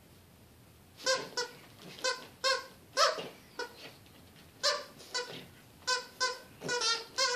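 A squeaky plush dog toy squeaking over and over as a pug puppy bites and chews it. The short, loud squeaks come in irregular bursts, starting about a second in.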